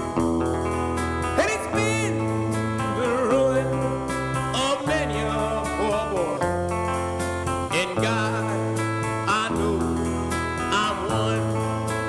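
Background country music with guitar, a steady beat and a singing voice.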